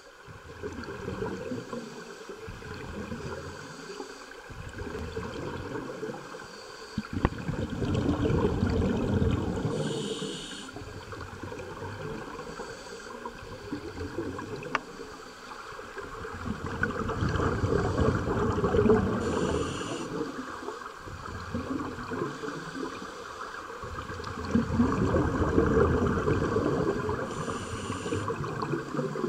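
Scuba regulator breathing heard underwater: long rumbling, gurgling swells of exhaled bubbles about every nine seconds, each followed by a short hiss of inhalation through the regulator.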